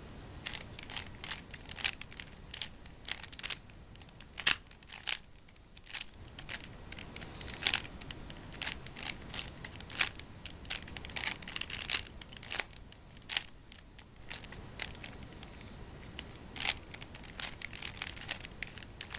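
A 3x3 Rubik's cube being turned fast by hand in a timed solve: irregular plastic clicks and clacks of the layers rotating, several a second, some louder snaps among them.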